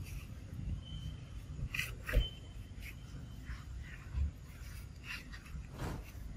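Baby macaques giving short, high squeaks over a steady low rumble, with a sharp knock about two seconds in.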